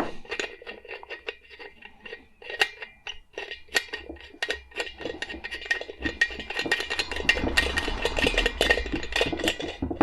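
Small metal lamp parts being handled: rapid clicks, clinks and rattles, busiest in the second half.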